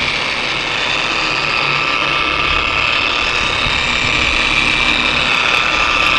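Bauer dual-action polisher running steadily with a constant motor whine as it buffs wax on an RV's body panel.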